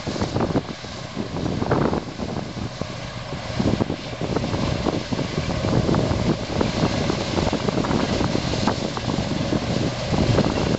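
Combine harvester running steadily while harvesting soybeans, a continuous machinery drone with dense rattling and clatter throughout.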